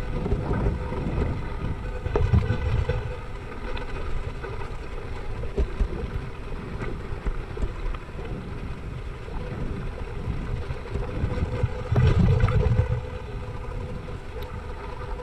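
Wind buffeting a handlebar-mounted action camera on a Yeti mountain bike riding a gravelly dirt trail, over the rolling noise and small clicks and rattles of the tyres and bike on the loose surface. The wind rumble swells strongly about two seconds in and again around twelve seconds.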